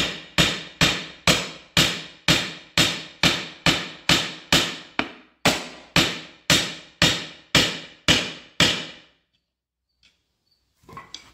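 Hammer blows on the steel Firestone RH-5 split-rim truck wheel, about two a second, each ringing briefly, to work the rim apart; there is a short break about five seconds in and the blows stop about nine seconds in.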